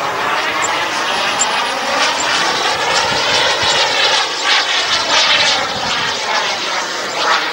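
Turbine-powered model jet (Top-RC Odyssey with a 14 kg-thrust JetCat turbine) flying past, its jet rush sweeping in tone as it passes closest about halfway through. The sound is loudest a little after the middle.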